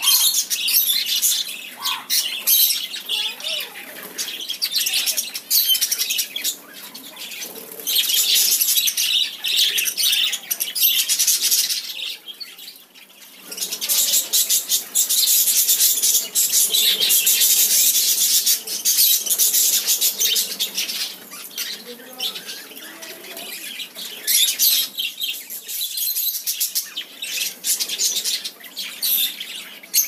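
Aviary flock of budgerigars and cockatiels chirping and chattering continuously in a dense, high-pitched din, with a short lull a little before the middle.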